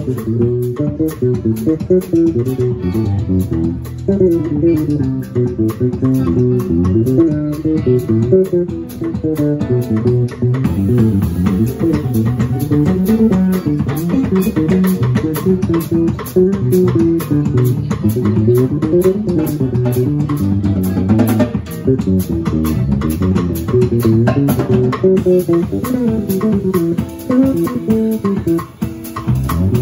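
Live instrumental band music: an electric bass guitar plays a busy, quickly moving melodic line over a drum kit, with electric guitar and keyboard.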